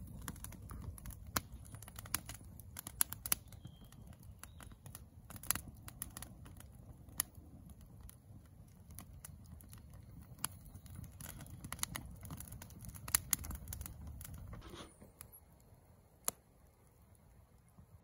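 Campfire of dry twigs and brushwood crackling, with irregular sharp pops over a low steady rumble. The rumble drops away about fifteen seconds in, leaving only sparse pops.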